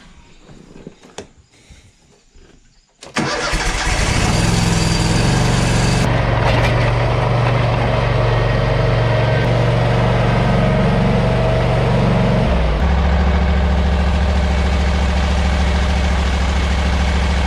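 A few light clicks and knocks, then about three seconds in an engine starts and runs steadily; about twelve seconds in its note drops to a lower pitch.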